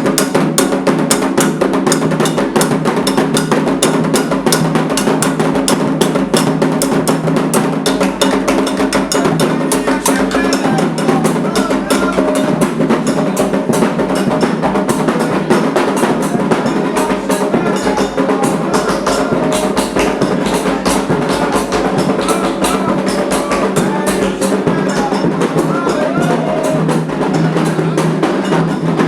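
Candomblé ritual drumming: atabaque hand drums played in a fast, dense, continuous rhythm, with a struck bell or wood block in the pattern.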